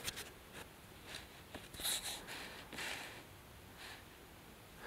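Faint handling noise: a few light clicks and brief rustles, spaced irregularly, as the scroll saw's upper arm and blade clamp are moved by hand.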